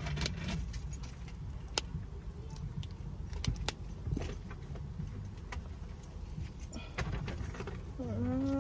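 Light metallic clinks and jingles of a carabiner clip on an earbuds case being handled, a few sharp clicks among them, over a steady low rumble inside a car cabin. A short rising tone sounds near the end.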